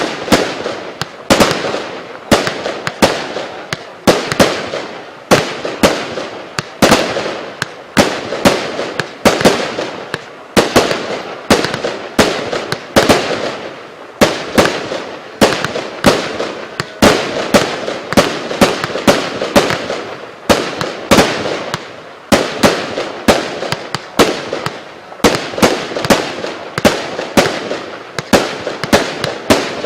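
A 100-shot, 0.8-inch consumer fireworks cake battery firing continuously: a rapid, steady string of sharp bangs, about two to three a second.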